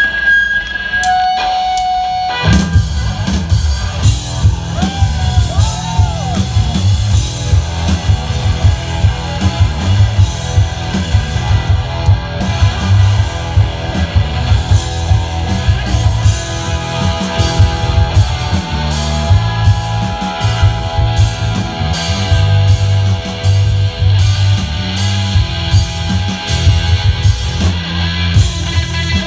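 Live indie rock band starting a song: after a couple of seconds of held notes, the drum kit and electric guitars come in together about two and a half seconds in and play on with a steady driving beat.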